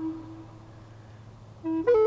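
Background music: a solo woodwind melody, one long held note fading out just after the start, a short lull, then a new, higher note entering near the end.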